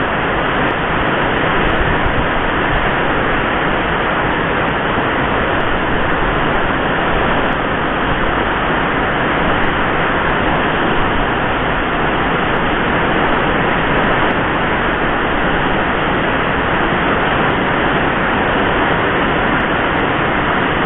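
Typhoon rain and wind: a steady, loud rushing noise of heavy downpour and strong gusts.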